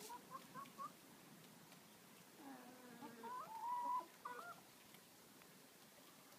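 Hens clucking softly a few times, then one hen giving a longer drawn-out call about halfway through, the loudest sound.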